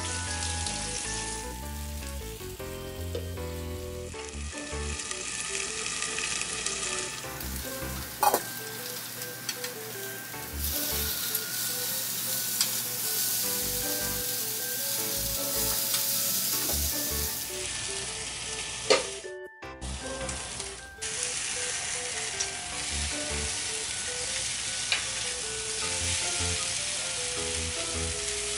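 Chicken breasts sizzling steadily on a hot ridged cast-iron grill pan, the sizzle strongest around the middle. A few sharp clicks of metal tongs against the pan, over soft background music.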